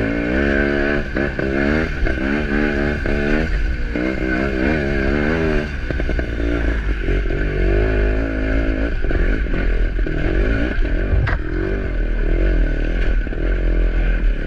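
Off-road vehicle engine revving hard and unevenly, its pitch rising and falling over and over as the throttle works.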